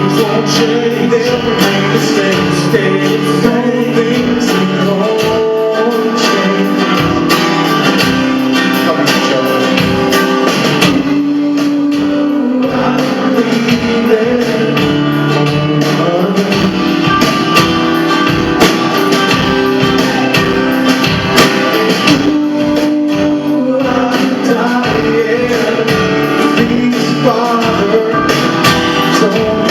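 Rock band playing a song live: a man singing over electric guitar and drums.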